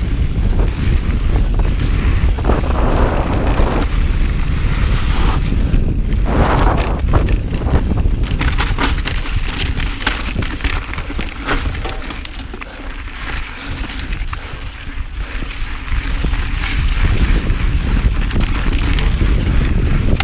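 A mountain bike rides over a dirt singletrack, with a steady low wind rumble on the camera microphone. Tyre noise from the dirt and scattered clicks and rattles from the bike run through it. It grows quieter for a few seconds past the middle.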